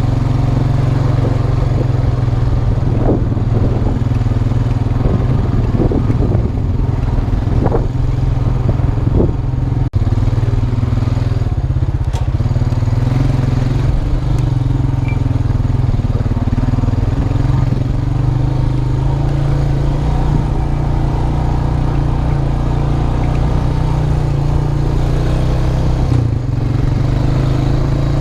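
2002 Honda Rancher 350 4x4 quad's single-cylinder four-stroke engine running steadily while riding. Its pitch shifts slightly, with a few sharp knocks about three to ten seconds in.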